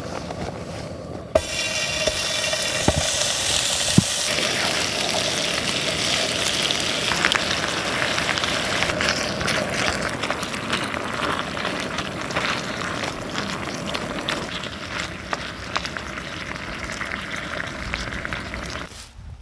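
Beef cubes and vegetables frying and sizzling in oil in a camping frying pan, stirred with a spatula that clicks and scrapes against the pan now and then. The sizzle starts suddenly about a second in and drops away near the end.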